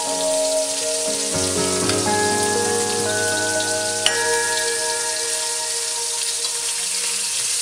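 Food sizzling in a frying pan, a steady hiss, under slow, sustained notes of background music that change pitch every second or two; a single sharp click about four seconds in.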